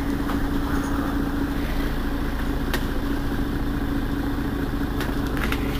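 Mercedes-Benz Citaro Facelift city bus running steadily, a constant engine hum with a steady tone and a couple of light clicks.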